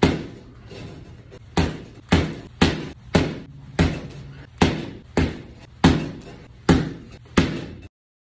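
Boxing gloves punching a hanging heavy bag: about eleven sharp thuds, mostly two a second, that stop abruptly near the end.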